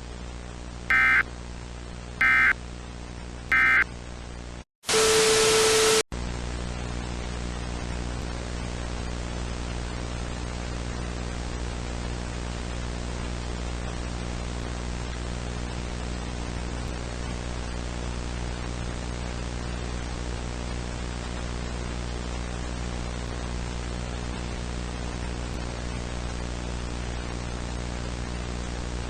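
Three short bursts of EAS digital data tones (the end-of-message code) about a second and a quarter apart, then a brief dropout and a loud burst of static with a low tone in it, lasting about a second. After that, steady static hiss over a constant electrical hum, as of a dead broadcast signal.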